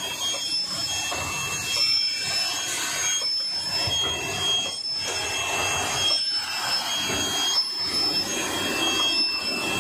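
Automatic bottle labeling machine and its conveyor running: a steady mechanical clatter with short, high-pitched squeaks that come and go every second or so.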